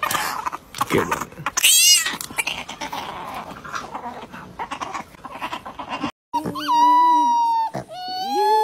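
A small puppy whimpers and squeals, with one high squeal about two seconds in, over wet clicking and lapping as it licks from a pet water-bottle feeder. After an abrupt break about six seconds in, a golden retriever puppy howls in long held notes.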